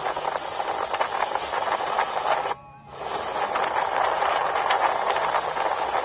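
Steady wind rush and boat engine noise on a phone microphone aboard a moving boat, cutting out briefly about halfway through.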